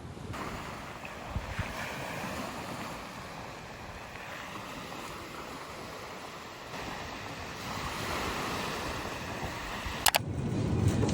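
Steady rushing outdoor noise with no clear pitch, with a sharp click about ten seconds in.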